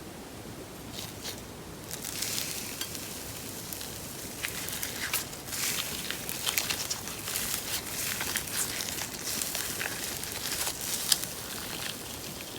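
Slime being squeezed and worked by hand, giving a run of small sticky crackles and clicks that start sparse and grow busier about two seconds in.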